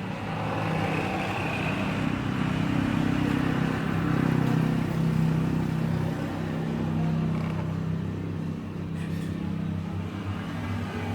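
A motor vehicle's engine running with a steady low hum. It grows louder over the first few seconds, then eases off a little.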